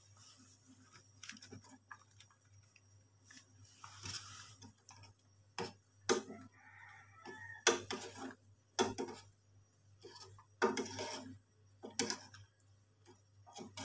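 Scattered knocks and clinks of a stainless steel pot and utensils on a gas stove as sardines are placed by hand into the simmering coconut curry, with about a dozen irregular sharp taps, a few louder ones clustered in the second half.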